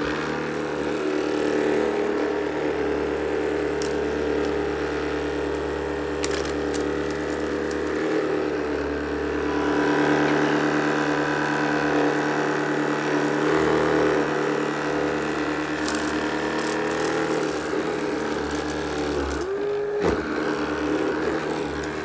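Shark cordless sweeper's motor and spinning brush roll switching on and running steadily on carpet, a hum with a few sharp clicks as debris is swept up. The motor briefly dips and picks up again near the end.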